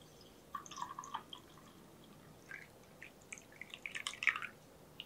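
Milk tea poured from a glass teapot into a mug, a thin stream splashing and trickling into the tea in two spells, the second one louder.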